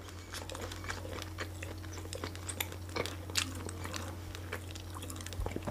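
A person chewing a mouthful of sausage with its casing close to the microphone: a run of soft, irregular clicks and mouth noises.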